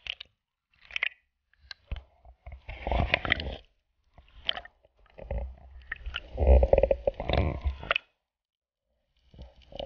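Sea water sloshing and bubbling around a GoPro action camera's housing as it moves underwater and breaks the surface, coming in irregular bursts with short near-silent gaps; the longest, loudest burst is about two-thirds of the way through.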